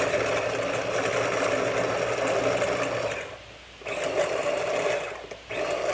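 Small electric food chopper running in pulses as it chops cooked chicken breast: a run of about three seconds, a brief pause, a shorter run, then another starting near the end.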